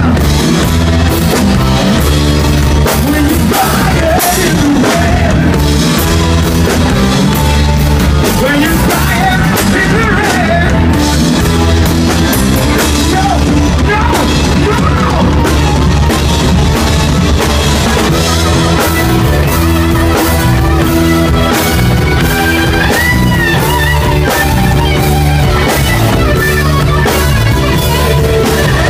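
Live hard-rock band playing loudly, with drum kit, bass, keyboards and electric guitars, and a lead line that bends and slides in pitch over the band.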